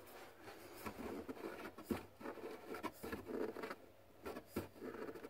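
Faint, irregular rubbing and scraping with small clicks as a spin-on oil filter is turned onto its mount by hand.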